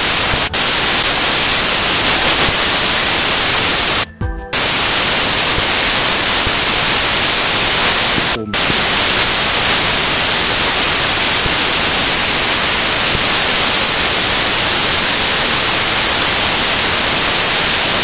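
Loud, steady static hiss like white noise, cut by brief dropouts about four seconds in and again about eight and a half seconds in.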